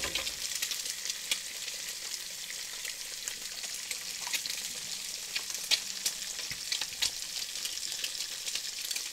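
Sausages, bacon, mushrooms and eggs frying in oil and butter in a pan: a steady sizzle with frequent small crackling pops.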